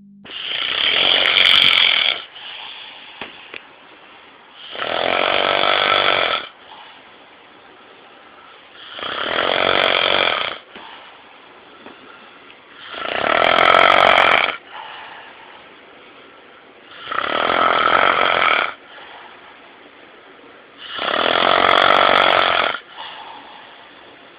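A sleeping person snoring: six long snores, each about two seconds, coming about every four seconds, with quieter breathing between them.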